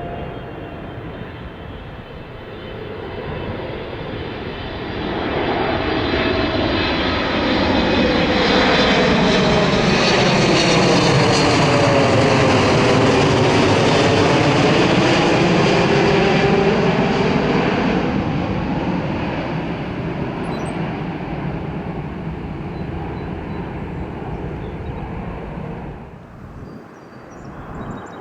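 Jet airliner passing close overhead: the engine roar swells over several seconds, is loudest in the middle with a sweeping, phasing whoosh, then fades away and drops off near the end.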